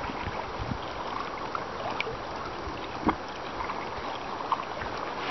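Steady rush of water along the hulls of canoes and a towed inflatable boat moving fast under sail, with a couple of small knocks, the clearest about three seconds in.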